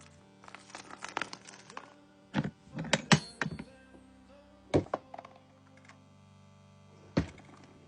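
Plastic tackle box and lures being handled: a few sharp clicks and knocks, a quick cluster about three seconds in, then single ones near five and seven seconds.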